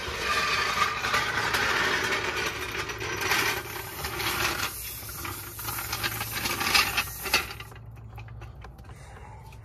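Small piston air compressor of a portable tire inflator running with a fast mechanical rattle and hum, pumping air into a car tire through a hose chuck held on the valve stem. It is loudest at first, turns patchier, and drops away about three quarters of the way through.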